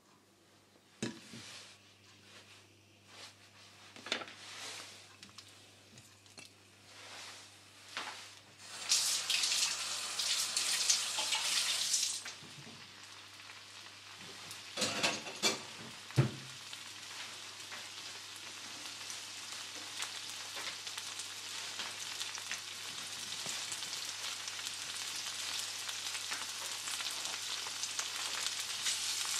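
Diced tomatoes hitting hot oil in a nonstick frying pan: after a few faint pops and light knocks, a loud burst of sizzling about nine seconds in, settling into steady frying that slowly grows louder. A few sharp knocks of things being set down come about halfway through.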